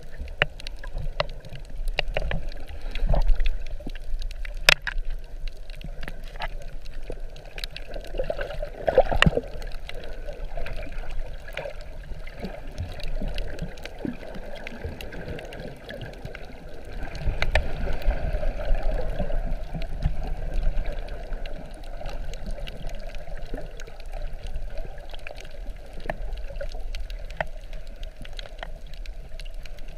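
Water sloshing and gurgling, muffled, heard through a GoPro's underwater housing while snorkeling. It runs as a steady low rumbling wash with scattered small clicks, and swells louder a few seconds in and again from about 17 to 21 seconds.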